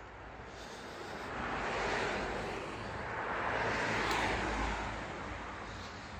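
Road traffic going by: the tyre and engine noise of passing vehicles swells twice, about two seconds in and again about four seconds in, then fades away.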